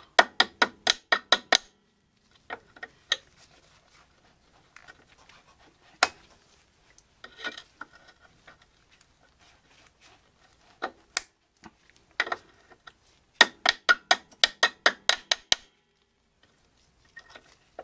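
Metal hand tools clicking at an ATV's lower ball joint while a small cotter pin is worked out. There are two quick runs of sharp clicks, about six a second, one at the start and one about two-thirds of the way through, with a few single clicks between.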